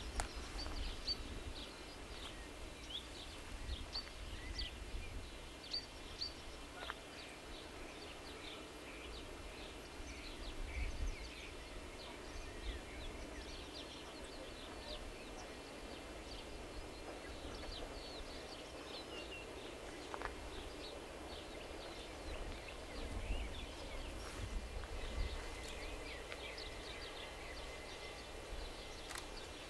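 Outdoor ambience of many small birds chirping and calling, scattered short calls all through, over an uneven, gusting low rumble.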